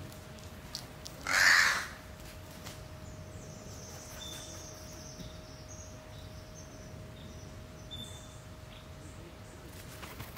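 A crow gives a single caw, about half a second long, about a second and a half in.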